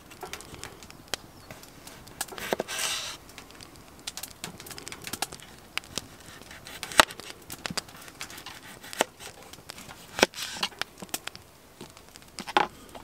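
A kitchen knife slicing raw potatoes on a wooden cutting board: irregular sharp taps as the blade cuts through and strikes the board, a few seconds apart.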